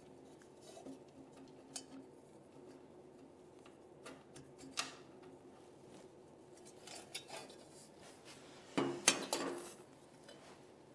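Lambretta engine's head cowl being worked off by hand: scattered small clicks and taps, with a louder clatter a little before the end as the cowl comes free.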